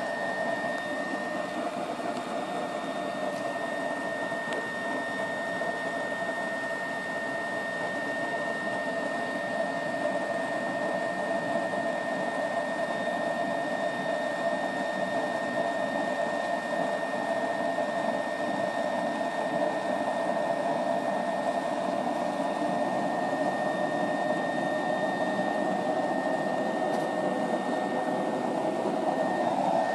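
BioLite camp stove's built-in fan blowing air into the fire of a burning oil-soaked cotton pad: a steady whirring rush with a thin high whine, growing slightly louder toward the end.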